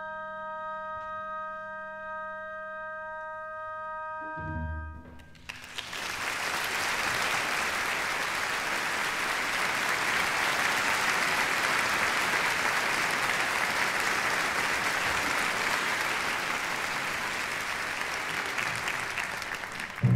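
An orchestra holds a final chord that ends with a low closing note about four seconds in. Then a theatre audience applauds steadily for the rest of the time.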